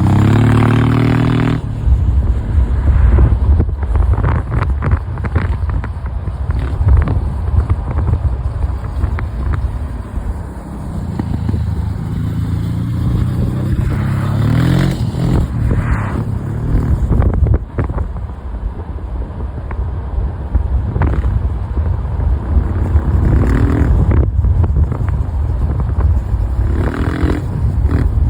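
Old Honda Africa Twin's V-twin engine running while riding, accelerating several times with its pitch rising through each gear, over heavy wind buffeting on the microphone.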